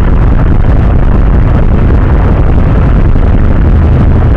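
Yamaha Mio Sporty scooter's single-cylinder engine idling while stopped in traffic, under a loud, steady low rumble of wind buffeting the camera microphone.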